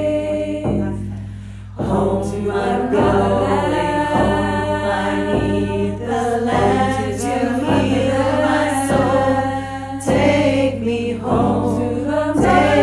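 A group of voices singing together in harmony over a steady low drone, with a brief drop in the singing about a second in.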